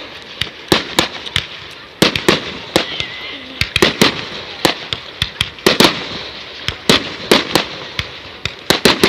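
Fireworks going off: sharp bangs at irregular intervals, about two a second and some overlapping, over a steady background of crackling and more distant explosions.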